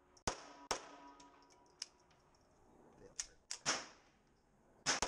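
Ruger Mark III 22/45 Target .22 LR pistol firing quick pairs of shots, double taps about half a second apart, each shot sharp with a short ringing tail: one pair near the start, another past the middle, and a further shot near the end.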